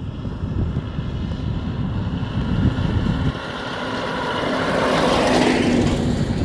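A truck passing close by on the highway: tyre and engine noise swell to a peak about five seconds in, with a steady low engine drone, and begin to fade. Wind buffets the microphone in the first few seconds.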